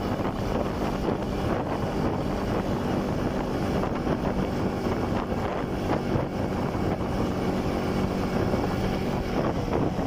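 Motorcycle engine running steadily on the move, with wind buffeting the microphone.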